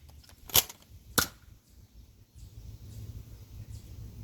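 Nerf blaster firing foam darts, two sharp pops about half a second apart, followed by a steady low rumble.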